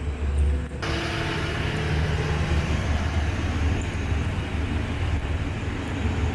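Diesel locomotive idling: a steady low engine rumble, joined about a second in by a louder broad hiss that then holds steady.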